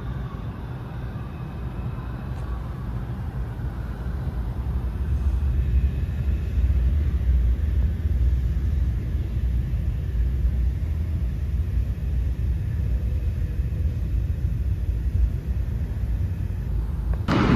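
Low rumble of a New York City subway train running unseen in the tunnel, growing louder over the first five or six seconds and then holding steady.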